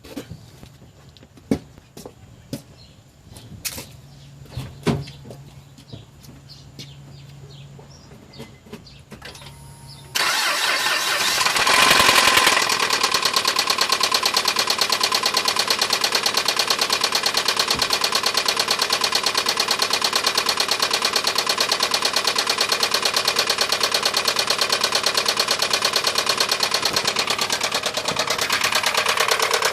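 A few clicks and a low hum, then about ten seconds in the 2007 Honda Ridgeline's 3.5-litre V6 starts, flares briefly and settles into a steady idle with a fast, even knocking. The knock is still there after a new hydraulic tensioner, which the owner takes for a bad engine.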